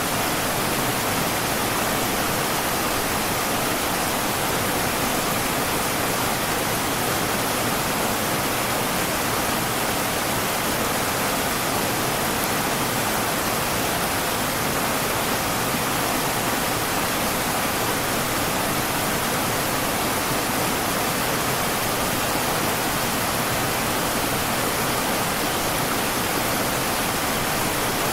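River water rushing, a steady even rush with no single splashes standing out.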